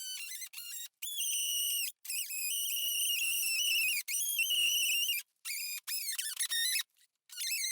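Reciprocating saw cutting through plastic bumper trim: a high-pitched whine that starts and stops several times, shifting in pitch between cuts.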